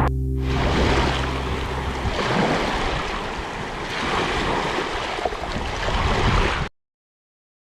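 Sea waves washing in and out in a steady surf, with a low held music tone underneath that ends about two seconds in. Everything cuts off suddenly near the end.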